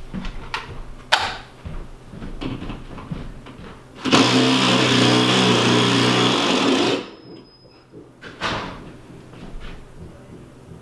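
Power drill running steadily for about three seconds, starting about four seconds in and stopping abruptly, as it drills or drives a lag screw into the wall. A few light knocks and clunks come before it.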